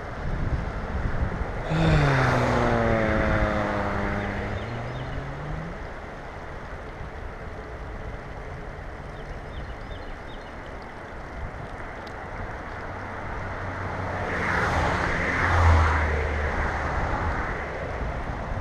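An engine passing by, its hum dropping in pitch about two seconds in and then rising again as it fades, over a steady rush of river water. A second swell of engine noise comes near the end.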